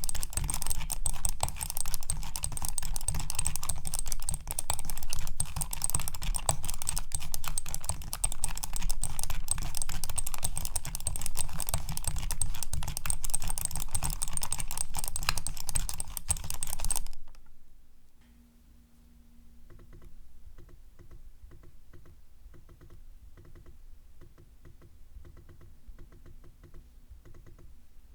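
Logitech B100 mouse being worked hard, a loud, dense run of rapid clicks and rubbing that stops abruptly about 17 seconds in. After a brief pause, an Apple Magic Trackpad is clicked in a much quieter, steady rhythm of about two to three clicks a second.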